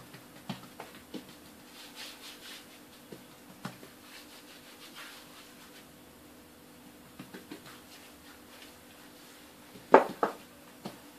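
Soft rubbing and light tapping of hands working oiled, stretched börek dough on a board, with two sharp knocks close together near the end, over a faint steady hum.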